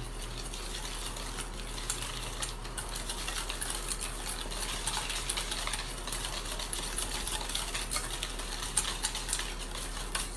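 Wire balloon whisk beating eggs into flour and cornstarch in a stainless steel bowl: a fast, steady run of wires clicking and scraping against the metal.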